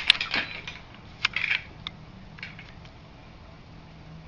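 Plastic clicks and rattles of a homemade toy hidden blade being worked on the arm. A few sharp clicks and short rattles come in the first second and a half, then a couple of fainter ticks.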